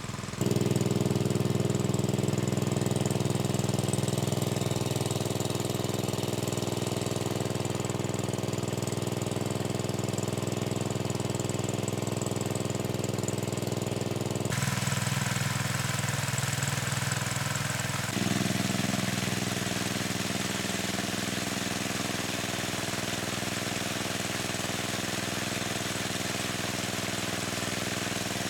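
A small engine running steadily with a chugging hum. Its tone and level jump abruptly twice, once about halfway through and again a few seconds later.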